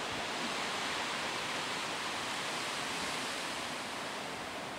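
Steady rushing hiss of flood water, with no engine note standing out.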